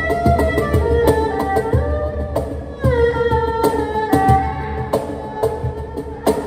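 Erhu and cajon playing an improvised duet: the erhu's bowed melody slides between notes, with a falling glide about three seconds in, over a steady pattern of cajon hand strikes, low thumps and sharp slaps.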